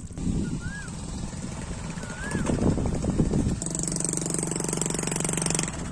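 A small engine starts running steadily about three and a half seconds in, with a hissy top. Before it there is a stretch of mixed outdoor noise with two short rising-falling whistles.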